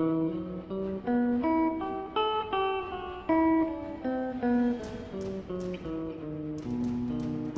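Soundtrack music: a melody of separate notes, with crisp taps joining about five seconds in.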